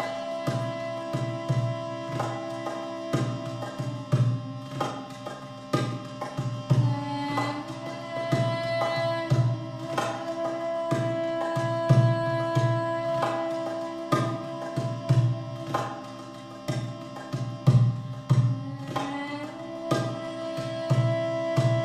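Sound-healing music: a sustained droning tone, shifting pitch a couple of times, under repeated hand-drum strikes.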